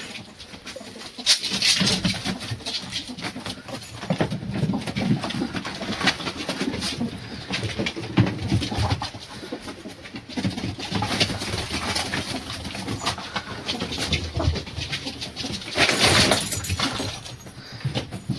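An animal making low, repeated calls, with scattered rustling and small knocks between them.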